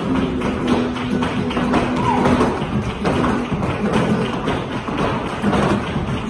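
Flamenco bulerías: rhythmic palmas (hand-clapping) and the dancers' heeled shoes striking the floor over flamenco music with held pitched notes.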